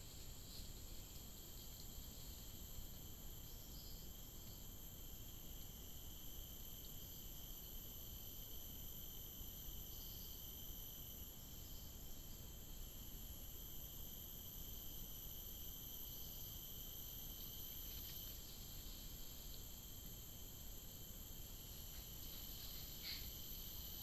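Faint, steady chorus of rainforest insects: several continuous high-pitched drones layered together over low hiss.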